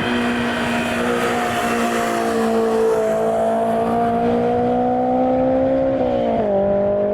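Car engine running hard on track, its note held steady, then slowly climbing in pitch, then dropping suddenly about six seconds in before carrying on.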